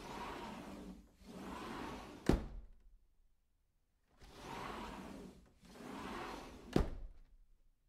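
A sliding door running along its track twice in a row, two rolling slides each about a second long, ending in a sharp knock as it hits its stop. The whole sequence plays twice.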